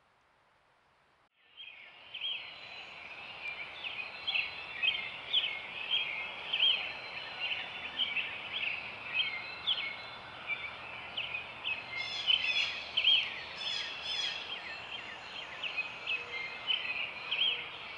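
Pre-dawn chorus of songbirds: many quick, short chirping phrases overlapping without a break, starting suddenly a little over a second in after near silence.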